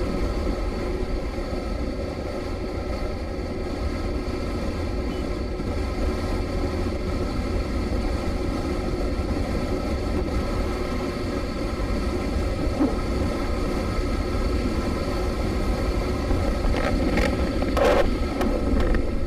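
Motorcycle under way on the road: steady engine and road noise.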